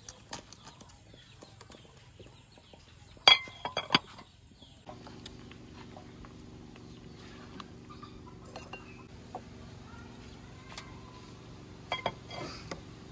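Crockery clinking: a quick run of sharp, ringing clinks about three seconds in, then another few near the end. Between them a steady low hum carries on with a few light knocks.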